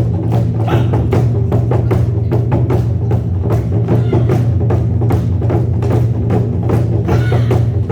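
Korean buk drums being struck in a steady, even rhythm of about three to four beats a second, over a continuous low tone.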